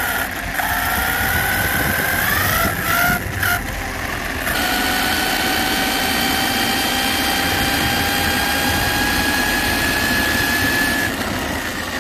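Electric RC car driving on asphalt: a motor-and-gear whine that climbs in pitch, breaks off briefly about three to four seconds in, then rises slowly and stops about eleven seconds in, over a steady rushing noise from the road.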